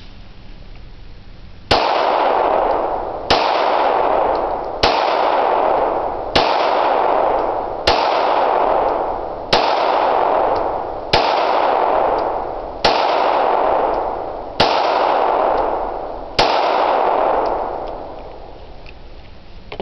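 Ten shots from a Smith & Wesson Sigma 40VE .40 S&W pistol in slow, steady fire, about one shot every second and a half. Each report is followed by a long decaying echo.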